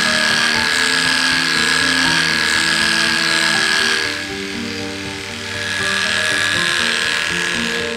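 Electric dog grooming clippers buzzing with a steady high whine as they shave through matted fur, over background music with sustained notes. The clipper sound drops away about halfway through and comes back a couple of seconds later.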